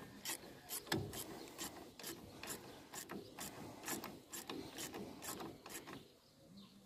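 A string of light metallic clicks, about three a second, with faint scraping between them, from the knotter parts of a John Deere 346 square baler being worked by hand during assembly. The clicks die away shortly before the end.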